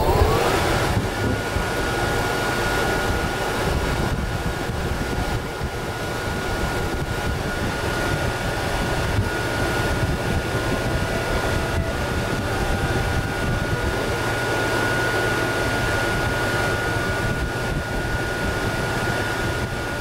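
DC-powered split air conditioner just switched on and cooling: air rushes steadily from its vents, with a thin motor whine that rises in pitch over about the first second as it spins up, then holds steady.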